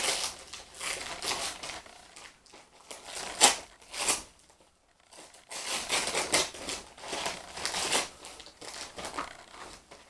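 Gift-wrapping paper being torn open and crumpled by hand: irregular crinkling and tearing, with a short pause near the middle and one sharp crackle, the loudest, about three and a half seconds in.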